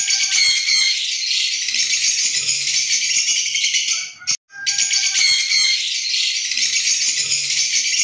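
Looped background audio: a dense, high rattling like a shaker, with a few short tones where each loop begins. It cuts out briefly a little past four seconds in, then the same pattern starts over.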